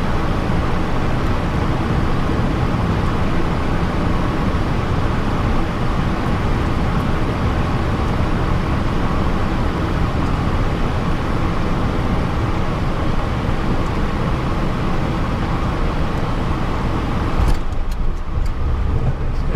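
Steady cockpit noise of a Cessna Citation XLS business jet on final approach: the even rush of airflow and the twin turbofan engines. About two seconds before the end the main wheels touch down with a thump, the hiss drops away and a low rumble of the rollout takes over.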